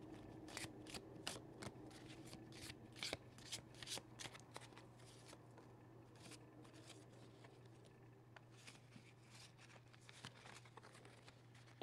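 Pokémon trading cards being shuffled gently by hand: a string of faint, soft card clicks and slides, busiest in the first half and thinning out toward the end.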